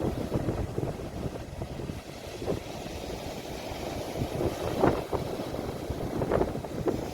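Sea waves washing and breaking on the shore, with wind rumbling on the phone's microphone. Several short, brighter surges of water stand out about 2.5, 5, 6.5 and 7.5 seconds in.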